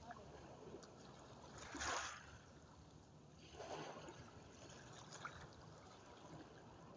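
Small waves washing onto the shore, faint: a soft surge of water about two seconds in and a smaller one near four seconds, with a low hiss between.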